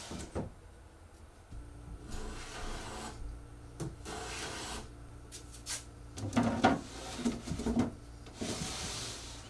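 Walnut drawer slid in and out of its case several times, wood rubbing and scraping on wood, with a few light knocks as it stops. The drawer is being test-fitted while its bottom, which acts as the drawer stop, is adjusted.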